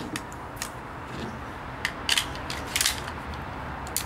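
A pistol being picked up off the bench and handled, giving a series of short metallic clicks and scrapes, with the loudest near the end.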